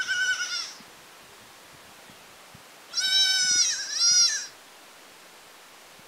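Young goat kid bleating: a short high bleat at the start, then a longer, wavering, two-part bleat about three seconds in.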